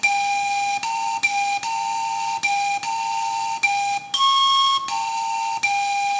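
Wot, the circular bamboo panpipe of northeast Thailand, playing a breathy melody. The notes move back and forth between two neighbouring pitches, with one higher note held for about half a second past the middle.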